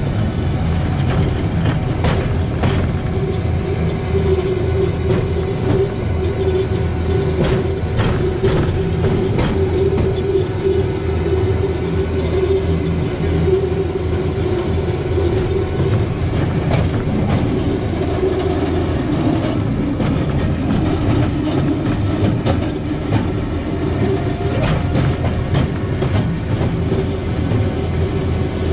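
A rail bike rolling steadily along the railway track: a continuous rumble with a steady hum from the wheels and drive, and irregular clacks scattered throughout.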